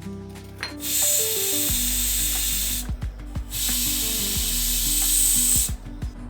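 A loud, even hiss in two stretches of about two seconds each, starting and stopping sharply, over soft background music.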